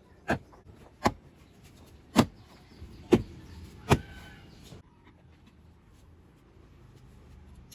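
Five sharp snaps about a second apart: the plastic push-lock clips of a Hyundai Creta's interior door trim panel popping into the door as the panel is pressed back on.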